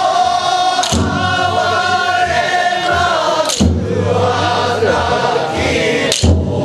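Men's chorus singing danjiri-uta in unison, a jōruri-style festival song in long, drawn-out notes. A sharp clack cuts in three times at even intervals, about every two and a half seconds.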